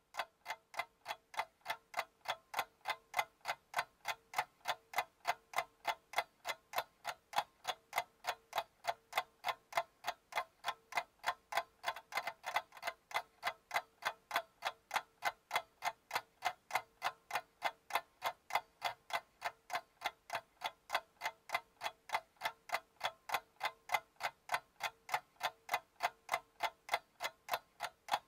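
Ticking clock sound effect: an even, steady tick-tock of about three ticks a second, over a faint steady tone.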